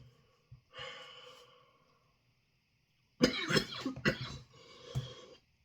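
A man coughing in a harsh fit of several coughs, starting about three seconds in, with a weaker cough near the end. He blames it on the dust of a freeze-dried chilli ice cream sandwich in the back of his throat.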